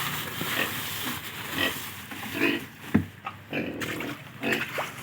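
Native pig grunting in short grunts, about one every half second to a second, while being fed grass.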